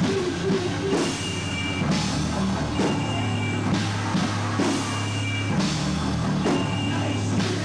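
Live rock band playing loud: distorted electric guitars, bass and a drum kit, with heavy accents landing about once a second.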